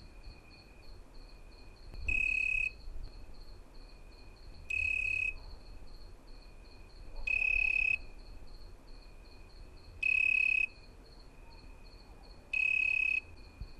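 Crickets singing: one cricket gives five loud, high, even trills of about half a second each, spaced roughly two and a half seconds apart, over a steady, fainter, rapidly pulsing trill from other crickets.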